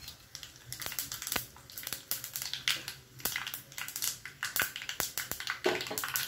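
Mustard, cumin and sesame seeds crackling and popping in hot oil in a small tempering pan: a steady, irregular run of sharp pops, several a second.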